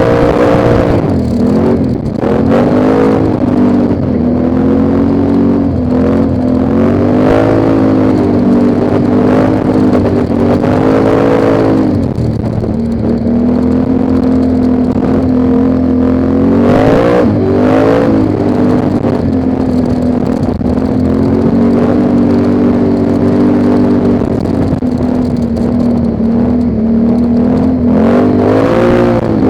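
ATV engine running under way, its pitch rising and falling again and again as the throttle opens and eases, with a few brief drops around 2, 12 and 17 seconds in.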